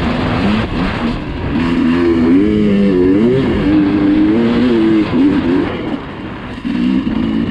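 Dirt bike engine running under changing throttle, its pitch rising and falling as it revs, over wind and riding noise. It eases off about six seconds in, then picks up again.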